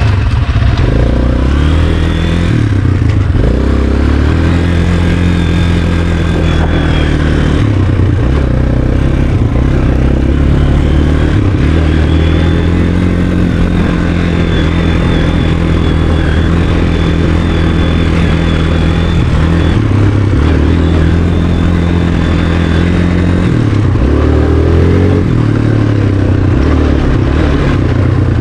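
Sport quad (ATV) engine running under way, holding steady speeds with its pitch stepping between levels and rising on the throttle about a second in and again near the end.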